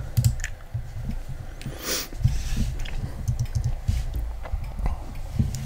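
Computer keyboard keys being pressed: scattered, irregular clicks with soft low thuds.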